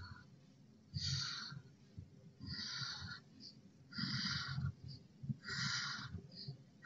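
Felt-tip permanent marker drawn across paper in four short strokes, each about half a second long and about a second and a half apart, as straight lines are traced over.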